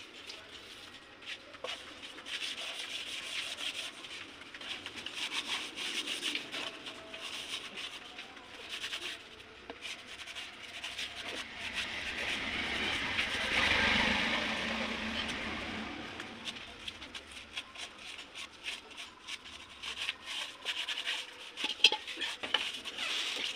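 Hands rubbing and scraping along the surface of a bamboo tube, a dry scratchy sound made of many short strokes that grows louder for a few seconds midway.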